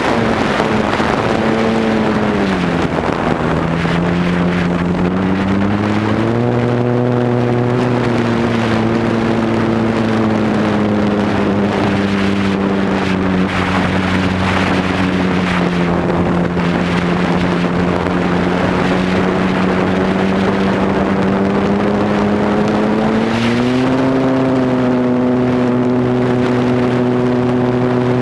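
Motor and propeller of a model Cub airplane heard from its onboard camera in flight: a steady drone over wind rush, its pitch dropping about two seconds in, climbing back around six seconds, and rising again near the end as the throttle changes.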